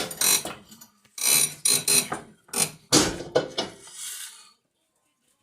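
Ratchet wrench being worked in several short bursts of rapid clicking, stopping about four and a half seconds in, while parts of the car's front suspension are bolted back together.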